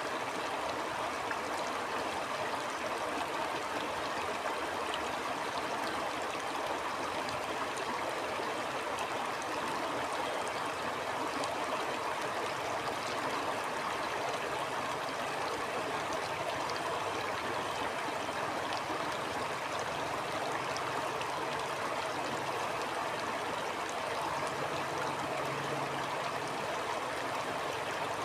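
Stream water flowing steadily: a constant, even rush with fine gurgling and splashing detail.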